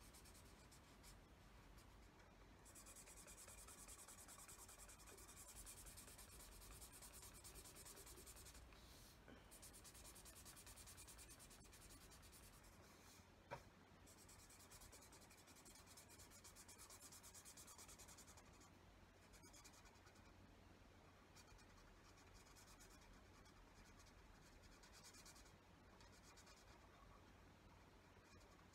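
Faint scratching of a felt-tip pen on paper, colouring in with stretches of rapid back-and-forth strokes. A single sharp click about halfway through.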